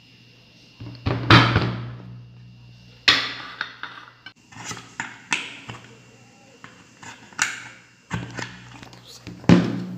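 A knife point jabbing and scraping at a plastic jar lid to cut a hole in it, giving a string of irregular sharp knocks and scrapes against the table, the loudest about a second in and near the end.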